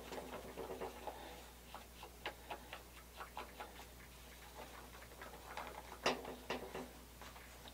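Faint, irregular light clicks and ticks of a stir stick against a small cup as two-part epoxy is stirred, with one sharper click about six seconds in.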